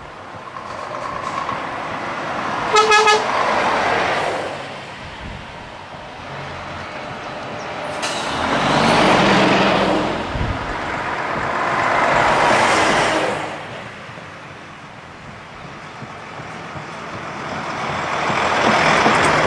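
Heavy trucks, a Scania S-series and a DAF XF among them, driving past one after another, their engines and tyres rising and falling as each goes by. About three seconds in, a truck horn gives one short blast.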